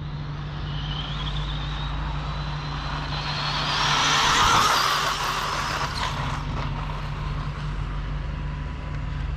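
Stretched Arrma Typhon RC car on 6S, its Hobbywing Max6 brushless motor whining as it accelerates at speed. The sound swells to a peak about four seconds in and then fades as the car goes past, over a steady low hum.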